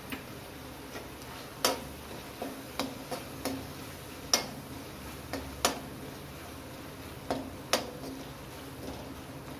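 Perforated steel spatula clinking and scraping against the sides of an aluminium kadhai while stirring, a dozen or so sharp clicks at irregular intervals over a steady faint hiss.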